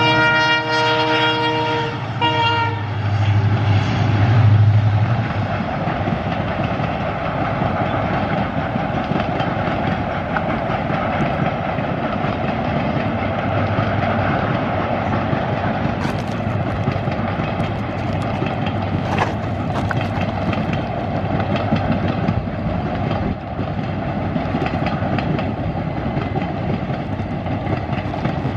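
Diesel locomotive horn sounding a steady chord that cuts off about two and a half seconds in, followed by a low engine drone. Then comes the long, steady rumble of passenger coaches rolling along the track, with scattered wheel clicks.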